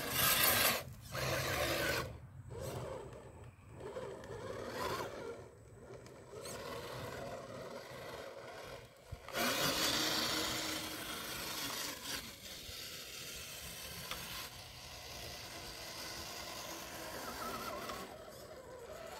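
A radio-controlled crawler's 20-turn electric motor and geared drivetrain whirring as it crawls through loose dirt, its tyres scraping over the soil. The sound swells in stretches, loudest about halfway through, as the truck works up and over the mounds.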